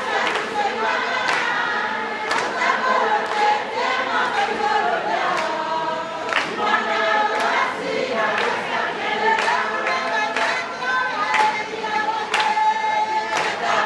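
A large crowd of women singing together, many voices in unison, with a sharp beat about once a second that fits hand claps in time.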